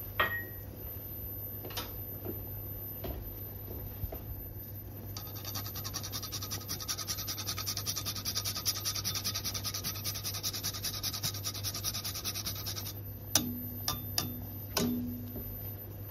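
Whole nutmeg grated on a fine rasp grater: a run of quick, even rasping strokes lasting about eight seconds, followed near the end by a few sharp knocks.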